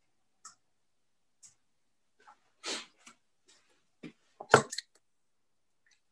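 A few faint clicks and a short rustle, then a quick cluster of sharp knocks about four and a half seconds in, as darts are pulled out of a bristle dartboard.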